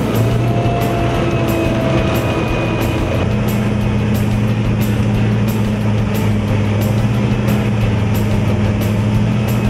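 Steady, heavy drone of the Albach Diamant 2000 mobile wood chipper running, mixed with background music that has a regular beat.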